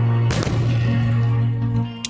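A single aerial firework shell bursting about a third of a second in: one sharp bang with a short echoing tail, over steady music that carries on underneath.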